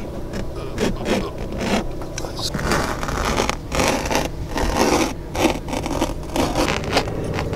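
Razor knife slicing through a fabric-covered van ceiling panel: a run of short, irregular scraping strokes.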